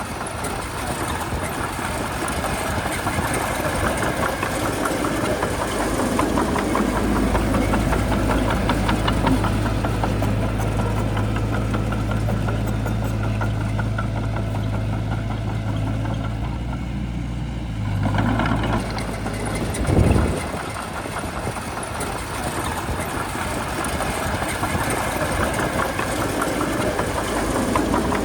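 Shantui bulldozer's diesel engine running steadily, with a low drone through the middle and a short loud knock about twenty seconds in.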